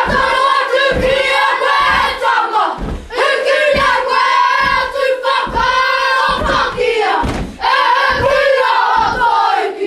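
Group of children chanting a haka in unison, shouted and strongly rhythmic, with stamps and slaps landing about twice a second.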